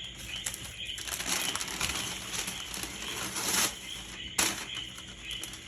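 Parchment paper rustling and crinkling as it is handled, with a denser stretch in the middle and a sharp crackle near the end.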